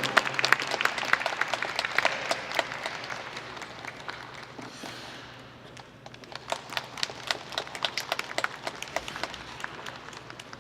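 Audience applauding after a skating program's music ends. The clapping thins out about halfway through, then picks up again with sharper, separate claps.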